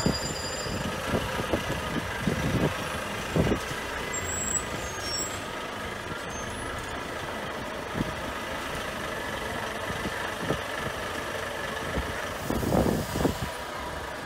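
Heavy diesel semi-trucks running steadily as a convoy of tractor-trailers rolls past at low speed.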